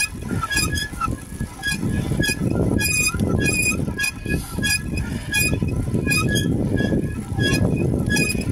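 Bicycle squeaking rhythmically as it is pedalled, short high squeaks about two to three times a second over a low rumble of wind and road noise. The squeak comes from an old bike in need of repair.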